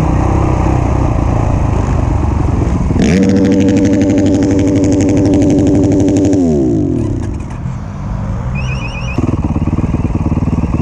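Dirt bike engine heard from the rider's own bike: held at steady high revs for a few seconds, then the revs fall away about six seconds in and it drops to a quieter low running, picking up again shortly before the end.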